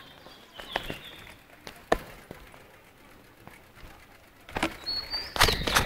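Knocks and clatter of a plastic food tub being handled close to the microphone: a few single knocks, then a louder cluster near the end, with faint high chirps over them.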